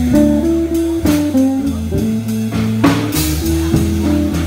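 Live blues band playing an instrumental passage: two electric guitars over a drum kit, with cymbal crashes about a second in and again near three seconds.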